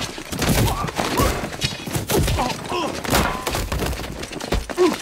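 Fight-scene punches and body thuds in quick succession, mixed with short grunts and cries from the fighters.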